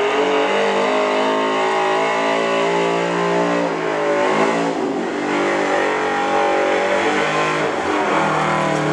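Gas pickup truck engine running hard at high revs as it pulls a weight-transfer sled down the track. The engine note holds steady, falters briefly about halfway through, then picks back up.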